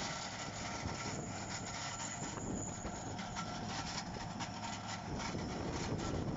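Motor grader's diesel engine running steadily under load while its rear ripper teeth drag through old compacted road base, with scraping and irregular crackles of breaking earth and stones.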